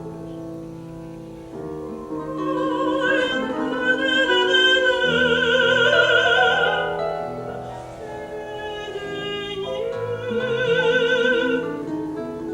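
A woman singing a Russian Gypsy song, holding two long notes with wide vibrato, the first swelling loud and the second after a short dip, over piano accompaniment.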